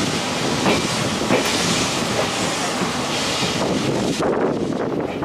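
Steam-hauled passenger train's coach wheels rolling over the track with a clickety-clack, heard at an open coach window, under a steady rushing hiss that drops away about four seconds in.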